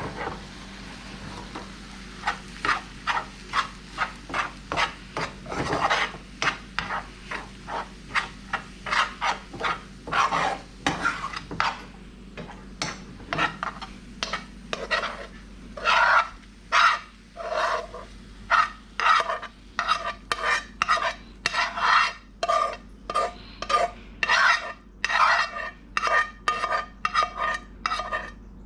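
A kitchen utensil scraping against a pan, stirring and turning food in quick repeated strokes of about two a second, louder in the second half.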